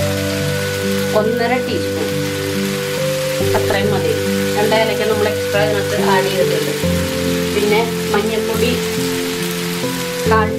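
Sliced onions, tomatoes and green chillies sizzling steadily in a frying pan, under background music of slow held notes that change about once a second.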